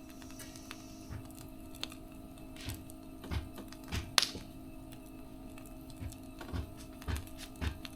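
Wood fire crackling, with irregular snaps and pops of varying loudness.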